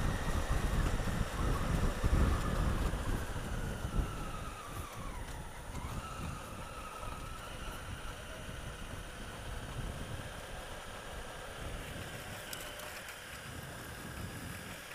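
Honda Africa Twin CRF1000L's parallel-twin engine running under way, with heavy wind rumble on the camera microphone for the first few seconds. The engine note falls about five seconds in as the revs drop, then climbs again, and the wind eases off.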